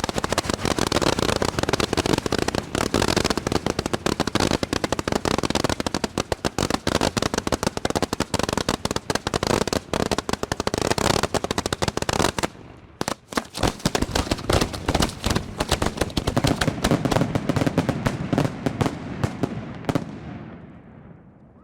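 A rapid, continuous barrage of 1.3G display fireworks: dense, overlapping reports and crackle, the show's finale. The barrage breaks off briefly about twelve seconds in, then resumes and dies away near the end.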